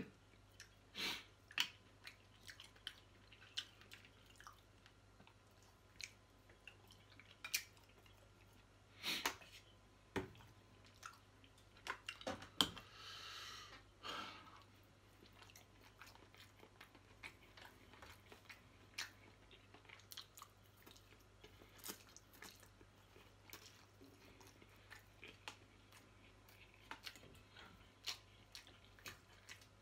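Close-miked eating: a man chewing and biting seafood and spaghetti, with scattered short clicks and small knocks throughout. A longer hissing sound lasts about a second and a half, a little less than halfway through.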